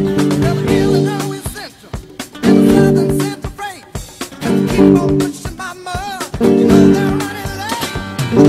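Thinline Telecaster-style electric guitar played along with a band track: full chords in short blocks about every two seconds with quieter gaps between, and bending, wavering lead notes above.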